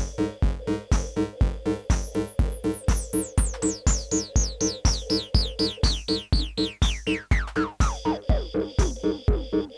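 Live techno from hardware drum machines and analogue synthesizers: a steady kick drum at about two and a half beats a second under a clicky pattern, while a repeating synth note sinks steadily in pitch from very high to low over about six seconds, then the groove carries on.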